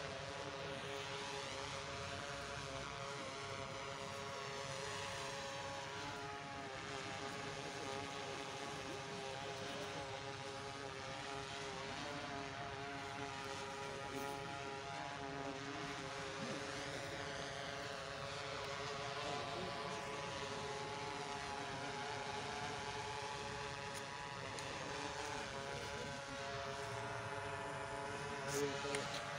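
Steady drone of propellers from an aircraft overhead, with a slowly shifting, phasing quality as it moves. A couple of brief knocks come near the end.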